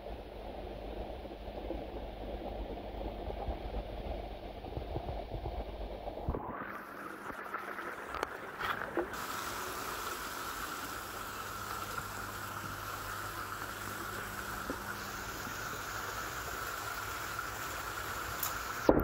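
Muffled rumble of a camera underwater in a koi pond, with a faint steady low hum; about six seconds in it changes to the steady bubbling and trickling of the pond water as heard above the surface. A single sharp knock right at the end.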